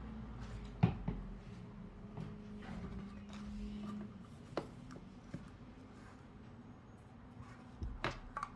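Faint rubbing and handling noises with a few sharp clicks and taps, as old dried thermal paste is wiped off an FPGA chip and its heatsink with alcohol. A low steady hum runs through the first half.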